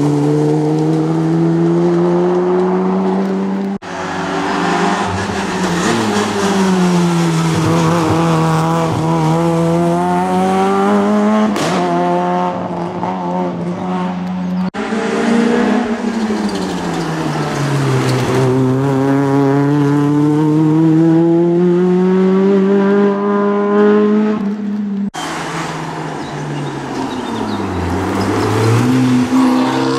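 Rally car engines at full load, their pitch falling and rising again and again as the cars brake, change gear and accelerate. The sound changes abruptly three times, at about four, fifteen and twenty-five seconds, as one car's run gives way to another's.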